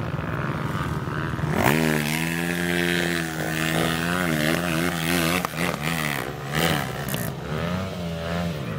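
Off-road motorcycle engine running steadily, then revved hard about a second and a half in and held at high revs, its pitch wavering up and down as the rider throttles through deep mud.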